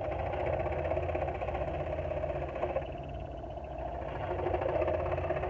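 Porter-Cable scroll saw running, its blade going up and down steadily as it cuts fine detail in a wooden workpiece: a steady motor hum with the buzz of the blade in the wood. The cutting sound eases briefly about three seconds in, then picks up again.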